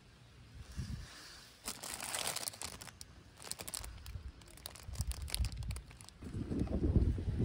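Plastic bread bag crinkling and rustling in the hands in irregular bursts, followed near the end by low rumbling handling bumps.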